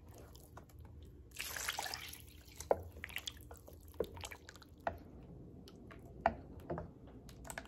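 Wooden spoon stirring thin corn masa with chicken broth in a stainless steel bowl: quiet wet splashing and scattered sharp clicks and splats, with a brief pouring of broth about a second and a half in.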